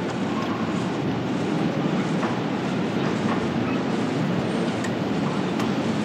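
Steady low rumbling ambience from a BBC sound-effects recording, with a few faint clicks scattered through it.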